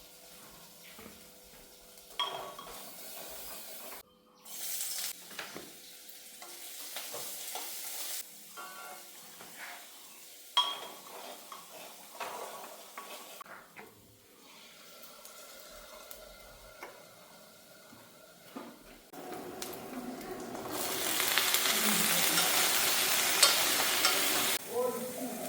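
Cooking in a pan: a utensil stirring and scraping with clinks over a soft sizzle, then about twenty seconds in a loud, steady sizzle of frying that cuts off shortly before the end.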